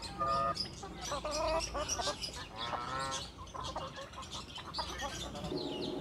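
A flock of Cochin chickens clucking and calling, with a few short pitched calls rising above the lighter chatter.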